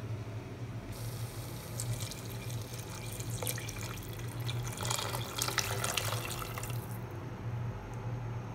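Hot water poured from a glass measuring jug into a stainless steel pot of onion masala, a splashing pour that runs about six seconds and stops suddenly near the end.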